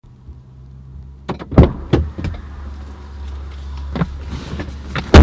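Clicks and knocks over a low steady hum inside a car, ending in a loud thump just before speech begins.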